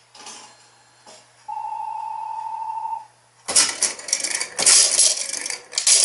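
Bally Wulff FOXX slot machine sounding a steady electronic beep for about a second and a half, then coins clattering out into its metal payout tray in several loud surges for about two and a half seconds: a partial payout (Teilauszahlung) of winnings.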